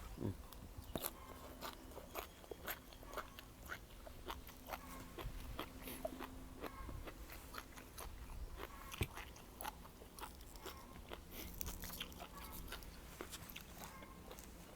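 Close-up chewing and crunching: many small, irregular crunchy bites of spicy pounded seafood salad with mussels and squid.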